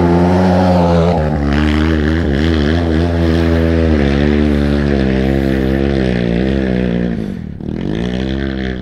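Dirt bike engine revving hard under load on a steep hill climb, its pitch rising and falling as the throttle is worked. It drops away briefly about seven and a half seconds in, then revs up again.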